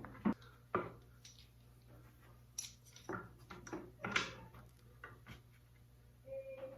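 Scattered light knocks, clicks and rubbing from wood pieces and tools being handled on a workbench, over a low steady hum, with a short squeak near the end.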